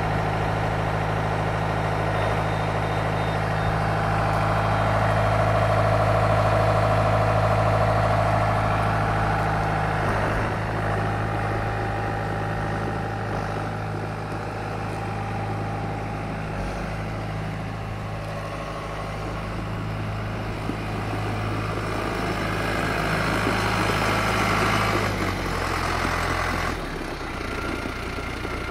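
John Deere 6320 tractor's four-cylinder diesel engine running steadily at idle, with a higher hum over it that fades out about ten seconds in. Near the end the engine note steps down twice.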